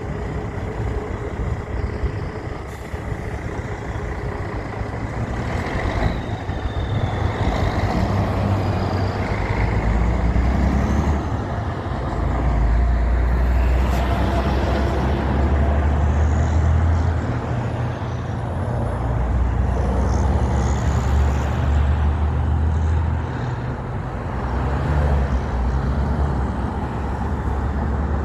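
Heavy trucks passing on a road one after another, a deep engine and road rumble that swells louder several times as each truck goes by.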